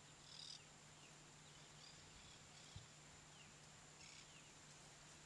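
Near silence: faint outdoor ambience with a few soft, short bird chirps.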